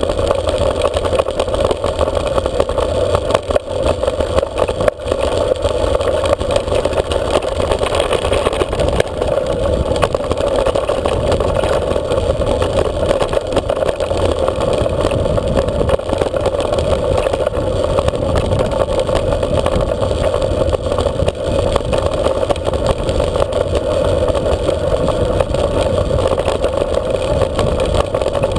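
Bike-mounted camera riding a gravel track: a steady rush of wind over the microphone with the rumble and rattle of tyres on loose gravel.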